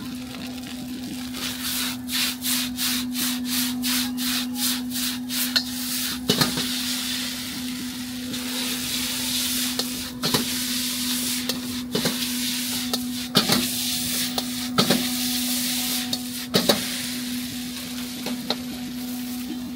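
Rice noodles stir-frying in a wok: a metal spatula scrapes and strikes the wok in a quick rhythm of about three strokes a second, then the noodles sizzle with a sharp clank every second or two. A steady low hum runs underneath.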